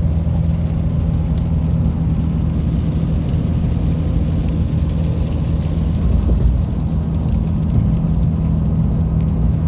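Steady road and engine drone heard from inside the cabin of a moving car, a constant low hum.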